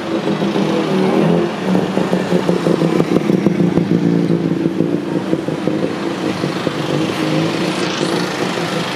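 Motor vehicle engine running with a busy rattling clatter, its pitch shifting a little as it goes.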